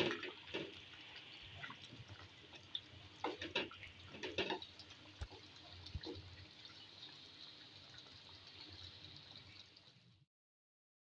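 Thick beef-and-chana-dal mezbani daal simmering in a pan: a steady sizzle with bubbling, and several louder pops and knocks in the first half. The sound cuts off suddenly about ten seconds in.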